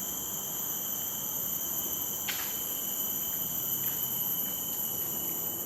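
Steady high-pitched drone of insects calling, with one short falling chirp about two seconds in.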